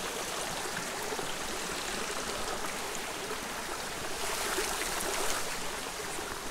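Small mountain creek running steadily, water rushing and trickling through a wooden diversion weir close by, growing a little louder for a second or so in the second half.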